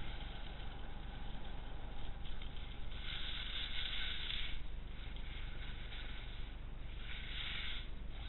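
Skis carving and scraping over hard snow while wind buffets the camera microphone with a low rumble. The scraping hiss swells twice, for about a second and a half starting about three seconds in, then again for about a second near seven seconds, as the skis bite into turns.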